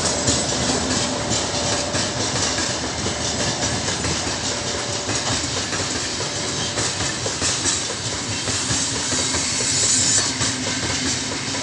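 Freight train wagons rolling past with the brakes applied: steady, dense rolling noise with the wheels clicking over rail joints.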